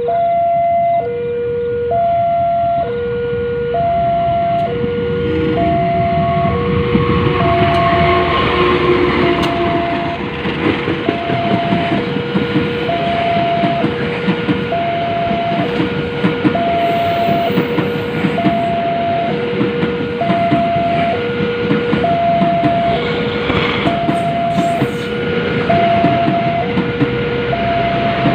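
Railway level-crossing warning siren sounding an alternating high-low two-tone alarm, about a second per tone. From several seconds in, the Fajar Utama Yogyakarta passenger train rumbles slowly past, its wheels clattering on the rails.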